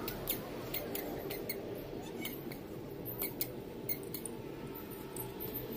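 About ten light, sharp clicks and ticks at irregular intervals over a low steady background noise.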